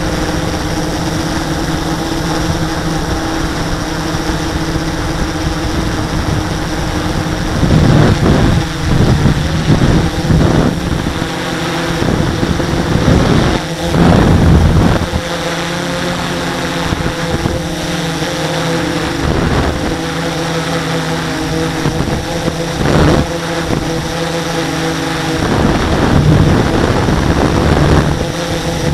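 Model aircraft's motor and propeller droning steadily, heard from a camera on board the plane, with loud gusts of wind buffeting the microphone in the middle of the flight and again near the end.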